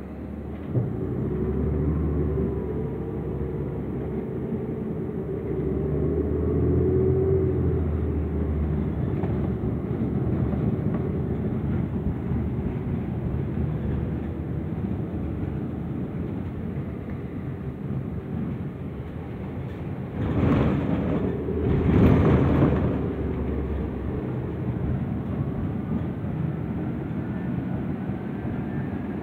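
Interior of a moving New Flyer transit bus: the engine and drivetrain drone steadily under road noise, the pitch shifting as the bus changes speed. Twice, about twenty and twenty-two seconds in, a louder burst of rushing noise swells up.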